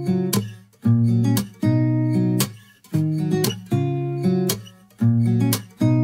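Background music: an acoustic guitar strumming chords in a steady, even rhythm.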